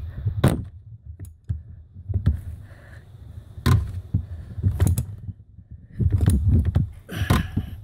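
Ratchet, socket extensions and 28 mm socket clicking and clanking in irregular knocks as the tight top fuel filter housing cap is worked loose.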